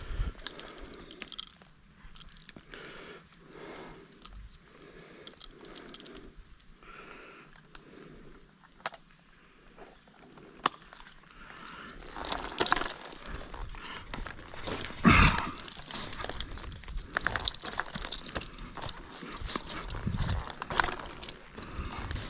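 Metal climbing hardware jangling and clinking, with sharp clicks throughout and a series of soft, evenly spaced sounds in the first half. A louder clank comes about fifteen seconds in.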